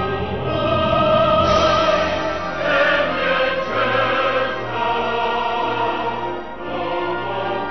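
Classical background music: an orchestra with operatic choral singing, the voices holding long notes with vibrato.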